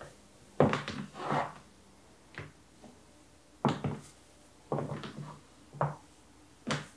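Metal stiletto heels of blue suede Casadei Blade pumps clicking on a wood floor as she walks, one sharp click per step, roughly one a second.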